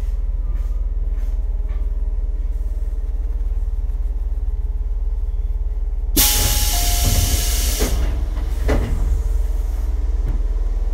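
Inside a Tobu 8000-series electric train car: a steady low electrical hum, then about six seconds in a loud hiss of compressed air from the car's pneumatic system lasting about two seconds, followed by a short thud.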